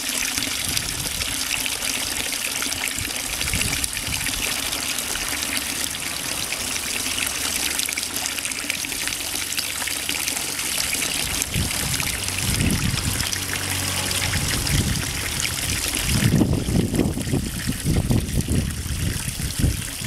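Concrete frog fountain's four water jets splashing and trickling steadily into the stone basin. Low rumbling joins in about twelve seconds in and again over the last few seconds.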